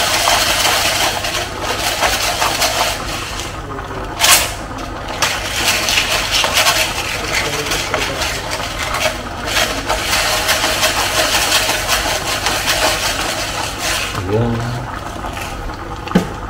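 Pork adobo sauce boiling hard in a pot, a dense bubbling and sizzling, with one sharp knock about four seconds in.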